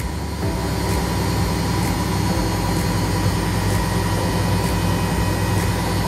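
A household appliance running with a steady low drone, vibrating hard enough to shake nearby objects.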